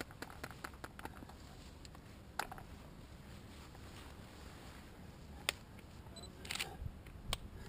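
Handling noise from a handheld camera: scattered small clicks and knocks over a low, faint rumble.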